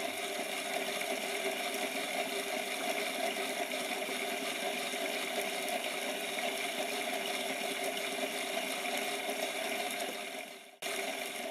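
Rapido OO-gauge Metropolitan Railway E-Class model locomotive running on a rolling road: a steady whir of its small electric motor and gears, with several held whining tones.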